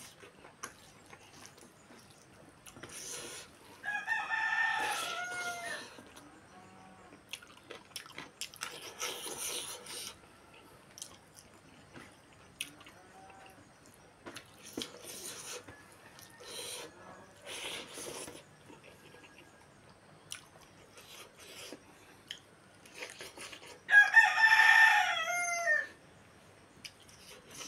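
A rooster crowing twice, a few seconds in and again, louder, near the end, each crow about two seconds long and dropping in pitch at its close. In between come short wet clicks and smacks of someone eating rice by hand and chewing.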